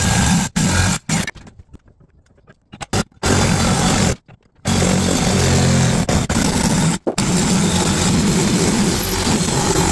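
Cordless DeWalt reciprocating saw cutting through an aluminum intake manifold, a loud buzzing rasp of blade on metal. It stops for about two seconds a little over a second in, starts again, pauses briefly around four seconds, then runs steadily.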